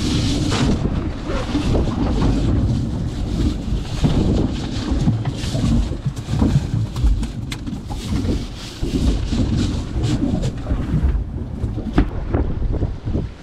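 Wind buffeting the microphone on a boat at sea: a constant, uneven low rumble, with a few sharp knocks.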